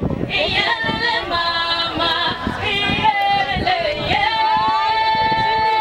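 A group of people singing together, voices gliding between notes, with one long held note in the last second and a half.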